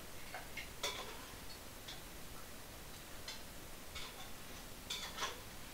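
Faint, irregular clicks of a computer keyboard and mouse as a number is typed into a form field, about eight taps over several seconds. The sharpest come about a second in and near the end.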